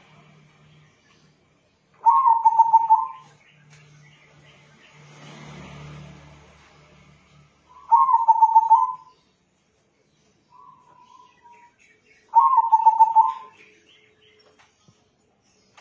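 Zebra dove (perkutut) of a local crossbred line cooing: three short phrases of rapid staccato notes, each about a second long and about five seconds apart, with one faint short note between the second and third.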